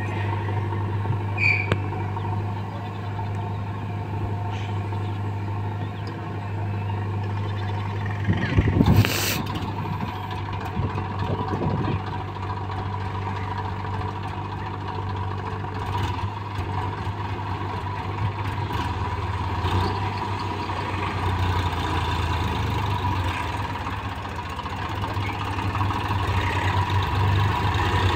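Diesel engines of a Massey Ferguson 7250 DI tractor and a JCB backhoe loader running steadily. There is a loud clatter about nine seconds in and a smaller one a few seconds later, and the engine grows louder near the end as the tractor comes closer.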